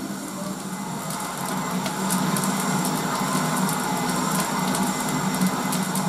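Coal fire in the firebox of a BR Standard 4MT 2-6-4T steam tank locomotive crackling sharply through the open firehole, over the steady rumble and hiss of the cab.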